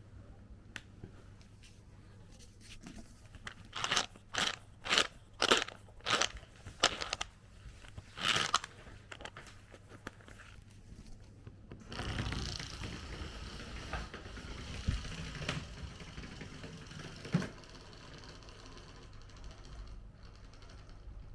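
About eight short, crunching scrapes in quick succession, then several seconds of rustling with a few soft knocks.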